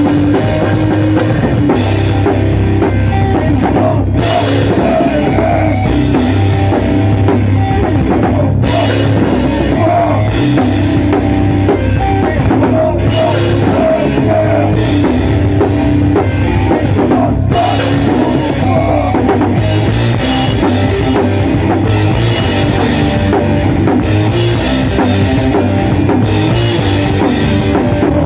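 Loud hardcore punk/metal band playing: a drum kit driving a fast beat under distorted electric guitars and bass.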